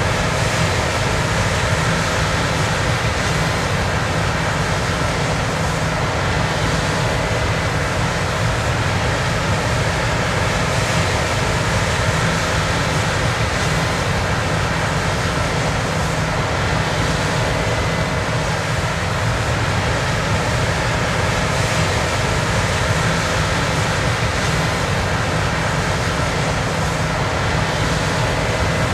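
Machinery running steadily: a constant dense rumble with a faint steady whine on top, never changing.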